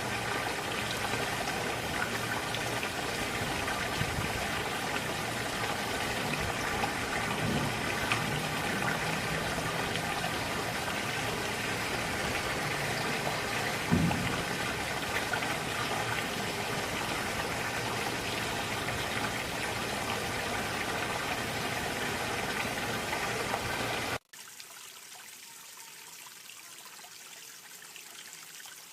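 A creek's water running steadily over rocks, with one brief low knock about halfway through. Near the end it cuts suddenly to a quieter, thinner rush of running water.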